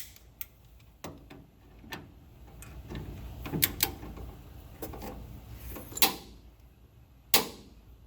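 Scattered sharp metallic clicks and clanks of hand tools on a shock absorber's mounting bolt, with the loudest knocks about six and seven seconds in.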